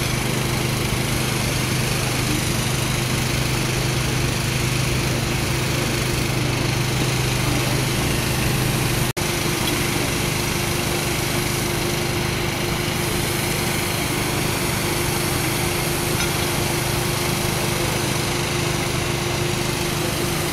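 A small engine running steadily at constant speed, with a brief break about nine seconds in.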